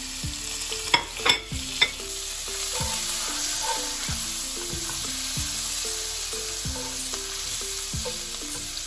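Ground spices, ginger and green chilies sizzling in hot oil in a nonstick pan while a wooden spatula stirs them, with a few sharp knocks of the spatula on the pan about a second in. This is the tempering stage, the spices frying briefly in oil before the vegetables go in.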